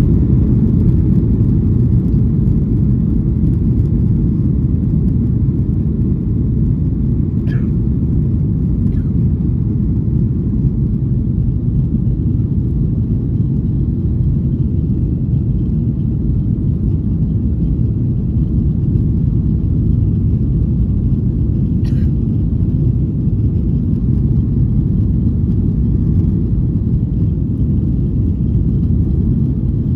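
Cabin noise of a Boeing 737-800 during takeoff: a steady low rumble from its CFM56-7B engines and the airframe. A few faint ticks come through, one about a quarter of the way in and one about three-quarters through.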